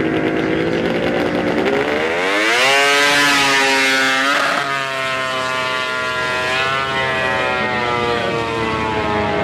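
Racing snowmobile engine at full throttle on a straightline run. The pitch climbs steeply about two seconds in, then drops suddenly about four and a half seconds in as the sled passes, and holds high and steady after that.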